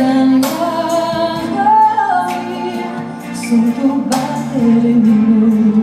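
A woman singing a slow ballad live, holding long notes over keyboard accompaniment, with a few sharp percussion hits in the backing.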